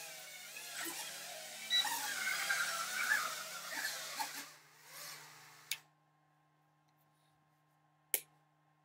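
Background music that fades out about five seconds in, leaving near silence with a faint steady hum and two sharp clicks.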